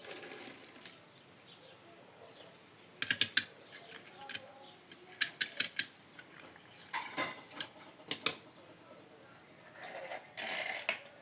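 Toy construction vehicles being handled, giving short clusters of sharp clicks and clacks several times, with a rustling noise near the end.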